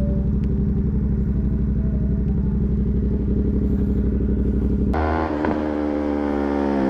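Motorcycle engine running steadily with an even pulsing beat. About five seconds in, it switches abruptly to a different, brighter engine sound.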